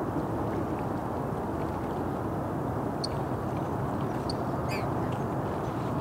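Steady rumble of heavy rush-hour freeway traffic, with a few short, high bird calls about three and four seconds in.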